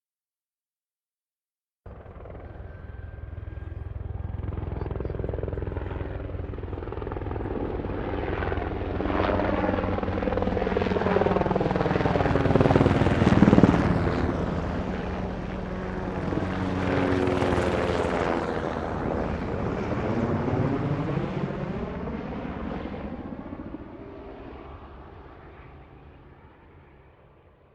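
Helicopter flying past. After a short silence its rotor and engine noise comes in, grows steadily louder to a peak about halfway through, then fades away as it moves off.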